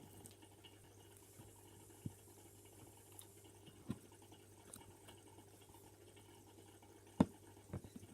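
Low steady hum with a few short, faint clicks or taps spread through; the loudest comes near the end.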